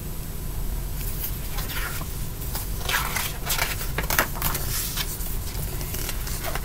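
Paper pages of a picture book rustling and crinkling as the book is handled and a page is turned: a string of short scrapes, busiest in the middle, over a steady low hum.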